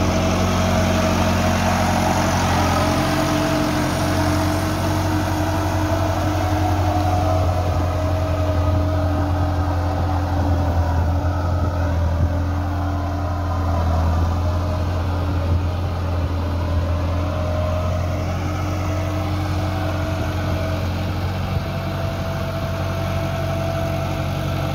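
Massey Ferguson 375 tractor's Perkins four-cylinder diesel engine running steadily under load as it drags a leveller board through flooded mud, puddling a rice field.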